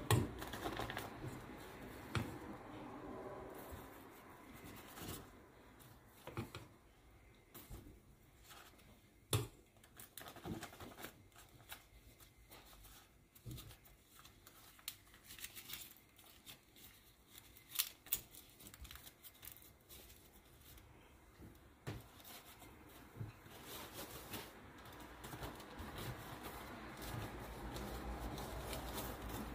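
Large ebieba leaves rustling and crinkling as they are folded into a cone and filled with cooked rice, with a few sharp knocks among the handling noise.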